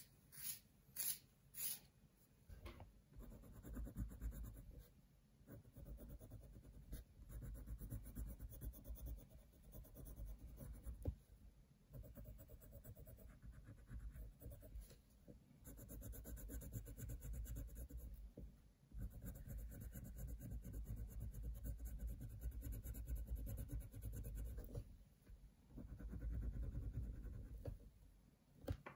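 Coloured pencil shading on paper: scratchy back-and-forth strokes in runs of a few seconds, with brief pauses between.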